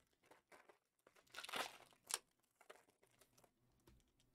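Wrappers of Prizm football card packs crinkling and tearing as the packs are handled and torn open by hand. The crackles come in short scattered bursts, loudest about a second and a half in, with a sharp snap just after.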